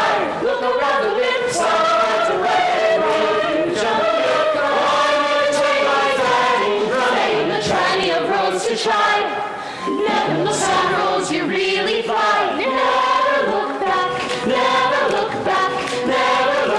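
A large cast of men and women sings together as a chorus in a musical-theatre ensemble number, accompanied by a pit orchestra.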